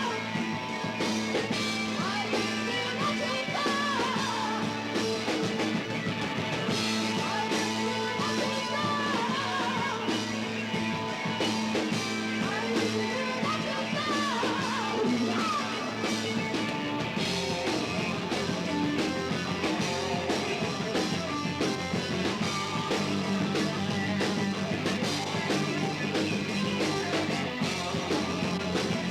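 Rock band playing live: guitars, bass and drums, with a lead line that slides and bends in pitch over the steady band.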